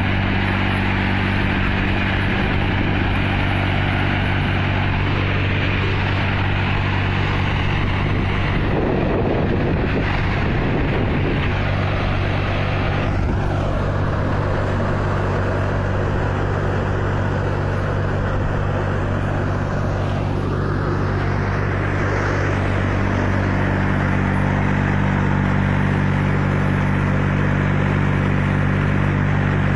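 A 27 hp Force Ox 25 tractor's engine running steadily while it works a front-mounted mini harvester (reaper) through dry crop.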